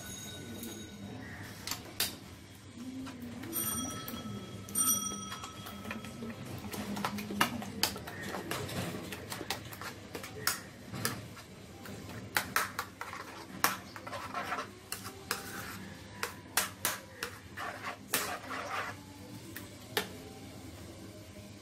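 Metal spoon beating raw eggs with sliced onion and coriander in a ceramic bowl: quick clicks and taps of metal against the bowl, densest through the middle of the stretch. A few ringing pings from the bowl come in the first few seconds.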